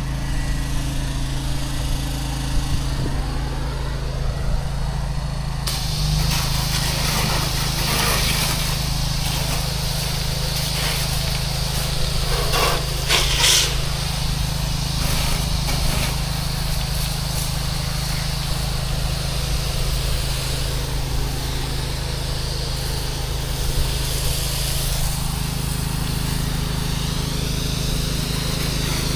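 Pressure washer's engine running steadily, with a loud hiss of spraying water across the upper range that jumps up about six seconds in.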